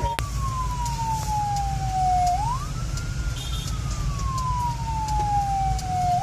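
Emergency siren wailing in a slow cycle: a long falling tone, then a quick rise, about once every four seconds. A low engine and road rumble from inside the vehicle runs beneath it.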